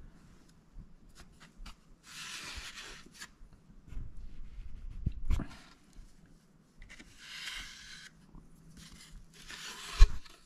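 Hands and a steel ruler rubbing and sliding over a violin top in short scraping strokes, with a few soft knocks in the middle. A sharper thump near the end is the loudest sound.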